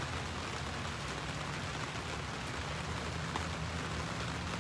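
Steady rain on the fabric roof of a tent, heard from inside as an even hiss with a low rumble underneath.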